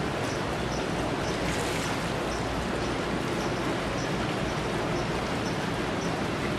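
Steady rushing outdoor noise: wind buffeting the microphone over the distant wash of ocean surf.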